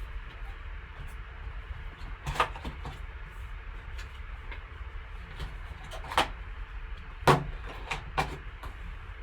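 Hands opening and handling a trading-card box and its packaging: a handful of short clicks and knocks, the loudest about seven seconds in, over a steady low hum.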